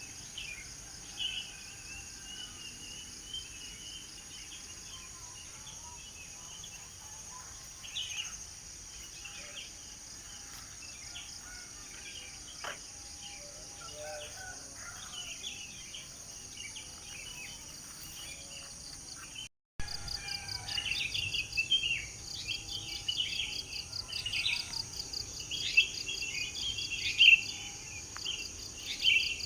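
Several birds chirping and singing over a steady high-pitched chorus of insects. About two-thirds of the way through, the sound cuts out for a split second, and the birdsong comes back louder and busier.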